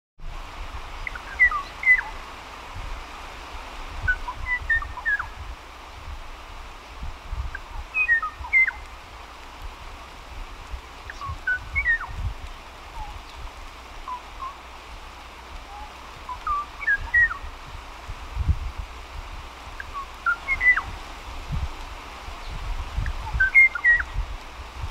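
Moho (Hawaiian ʻōʻō) singing: short phrases of a few clear whistled notes, repeated about every three seconds, over a low background rumble.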